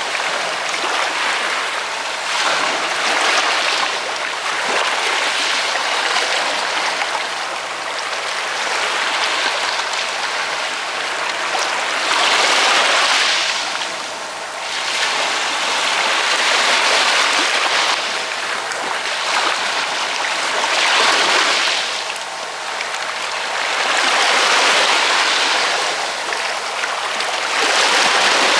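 Ocean waves washing onto the shore in a steady hiss that swells and eases every few seconds as each wave breaks and draws back.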